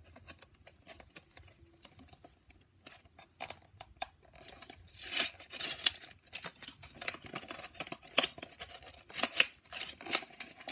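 Cardboard blind box being opened by hand and the foil bag inside pulled out: irregular scraping, clicking and crinkling, louder from about halfway through.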